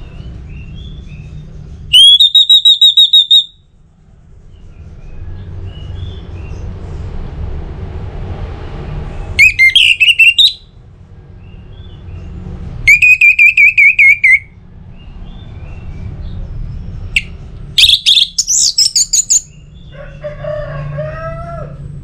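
Orange-headed thrush singing loud, short bursts of rapidly repeated whistled notes, about five phrases of a second or so each, a few seconds apart, followed by a softer, lower phrase near the end. A steady low hum runs underneath.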